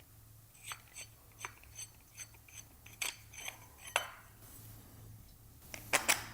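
Light, irregular clicks and clinks of hard parts on a HighRoller foam-roller stand as its axle is unscrewed, some with a brief metallic ring, and two louder clicks near the end.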